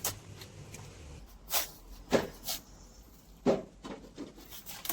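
Irregular rubbing strokes on a car body panel during bodywork, as filler is worked level before primer: about seven short scrapes spread unevenly.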